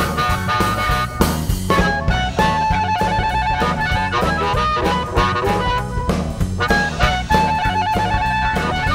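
Blues band playing an instrumental break: a harmonica lead over bass guitar and drum kit.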